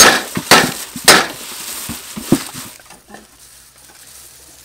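Crisp rustling and crackling of lemongrass stalks and leaves being pressed down into a large aluminium pot: three loud bursts in the first second or so, then fainter, quieter handling.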